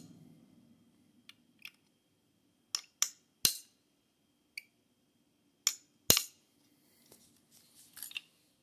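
About eight sharp metallic clicks, irregularly spaced, as the spring-loaded blue bolt catch on an AR-15 lower receiver is pressed and snaps back. Softer handling rustle follows near the end.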